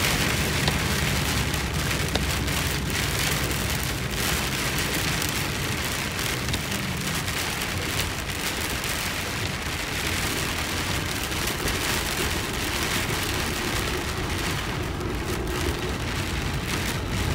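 Heavy rain falling on a car's roof and windshield, heard from inside the cabin as a steady hiss, over the low rumble of tyres on a wet, flooded road.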